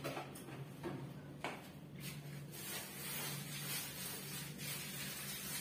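Kitchen handling sounds: a few knocks and clatters of items at the sink and counter, then rustling from about two and a half seconds in, over a steady low hum.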